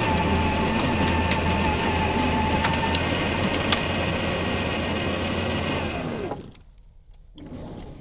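Tamiya CC01 RC car's electric motor and gearbox whining steadily, with a few sharp clicks. The whine stops about six seconds in, then starts again more quietly a second later.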